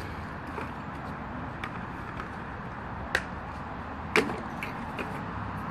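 Parts of an electric grill's pedestal stand being handled and fitted together: a few sharp clicks and knocks, the loudest two about three and four seconds in, over a steady outdoor background hiss.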